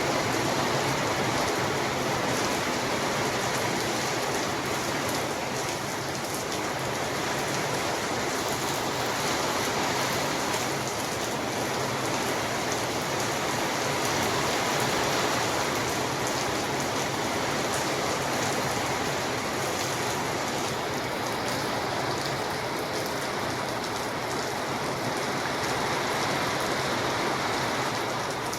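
Steady rain falling, an even hiss of drops on a surface.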